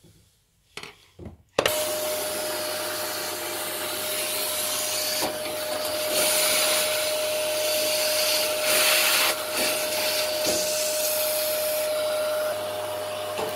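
A vacuum cleaner (hoover) switches on suddenly about a second and a half in, after a couple of small knocks, and runs steadily with a constant whine. Its suction noise swells and fades as the hose nozzle is worked along the dismantled gas fire's burner to suck out dust.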